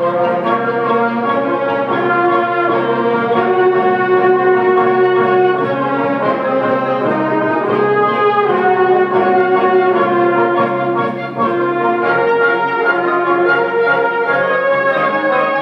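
High school symphonic band playing, with brass to the fore in sustained chords that change every second or two.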